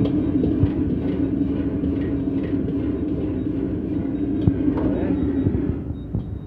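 Gas wok burner on a commercial wok range running with a steady low roar while noodles are stir-fried, with a few clanks of the metal ladle against the wok. The roar drops in level about six seconds in.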